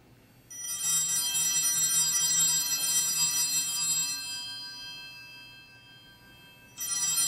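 Altar bells rung at the elevation of the host, marking the consecration. A jangling ring starts about half a second in and fades away over about six seconds, then a second ring starts near the end.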